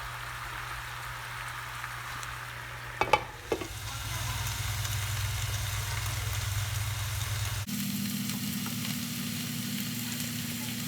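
Chicken curry with vegetables sizzling in a pot on the stove, with two sharp clinks about three seconds in. About two-thirds of the way through the sound changes abruptly and the sizzling goes on over a steady low hum.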